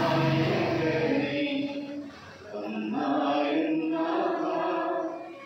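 Slow chant in long held notes, with a short break about two seconds in.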